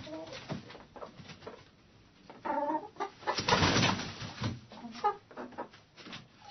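Hens clucking in a hen house, with short calls and scattered scratching clicks. About halfway through comes a loud, noisy scuffle lasting about a second.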